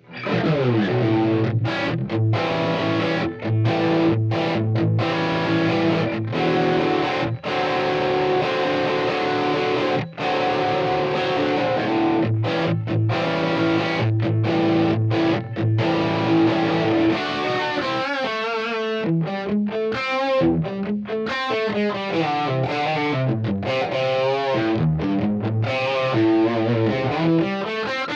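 Sterling JP70D seven-string electric guitar played with heavy distortion through a multi-effects processor. Chugging riffs and held chords with short, sharp stops open the passage, and about two-thirds of the way through it breaks into fast lead runs.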